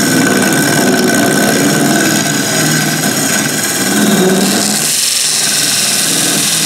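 Wood lathe running while a parting tool cuts into the spinning workpiece, turning it down to size. About four seconds in, the cutting noise gets brighter and hissier.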